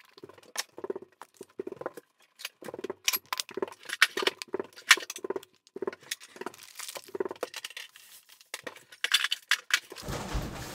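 Off-camera kitchen clean-up: a string of clicks, knocks and clinks from jars, containers and utensils being put away, with dull thumps among them. A steady rushing noise starts near the end.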